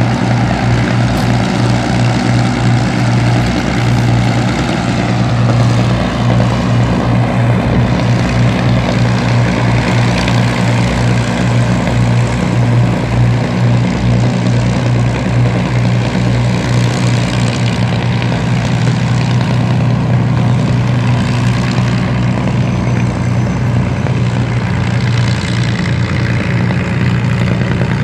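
Avro Lancaster bomber's four piston engines running together in a loud, steady drone, with no change in pitch.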